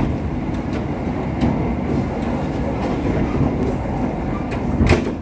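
Argo Cheribon passenger train running, a steady rumble from the wheels and running gear with scattered clicks as the wheels pass over rail joints. A sharper, louder knock comes near the end.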